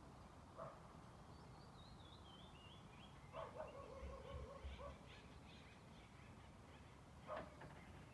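Faint forest ambience: a distant dog barks a few times, with a longer held call about three seconds in. A bird's high, wavering song falls in pitch over the first few seconds.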